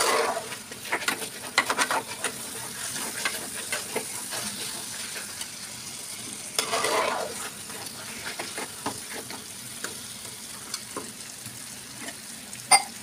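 Chicken masala frying and sizzling in a metal pot while a metal spatula stirs and scrapes through it, with scattered clicks of the spatula against the pot. The scraping is loudest at the start and again about seven seconds in.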